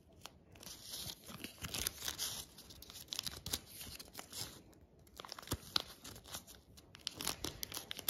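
Origami paper crinkling and rustling as it is folded and creased by hand, in irregular short crackles and taps.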